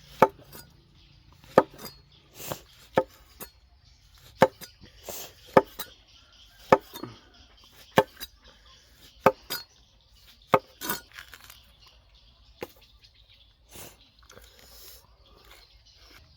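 Knife chopping on a cutting board: about a dozen single, sharp strokes spaced roughly a second apart, thinning out near the end.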